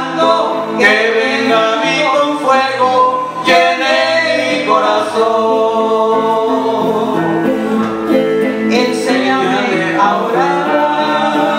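A man and a woman singing a slow song together, accompanied by electric guitar and bass guitar.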